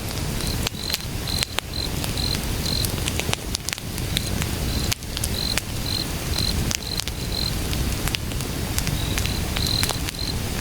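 Firewood burning outdoors, crackling and popping with sharp snaps over a low rushing rumble, while a cricket chirps steadily at a high pitch, a little over two chirps a second, pausing briefly twice.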